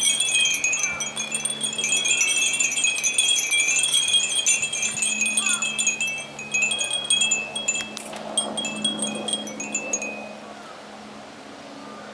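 Many Japanese fūrin wind chimes tinkling together, a dense cluster of short overlapping high rings that thins out after about six seconds and stops near the end. A faint steady low hum sits underneath.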